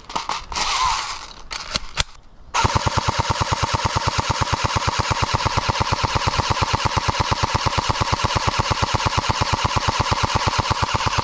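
Clicks as a magazine is fitted to an airsoft RPK replica. About two and a half seconds in, the gun opens up on full auto: a rapid, even rattle of shots that does not let up.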